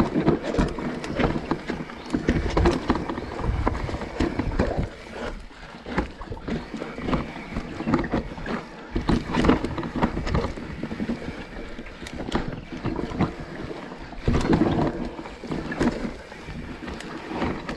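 Commencal mountain bike descending a rocky, steep trail: tyres and frame clattering over rock in irregular knocks and rattles, with wind buffeting the microphone.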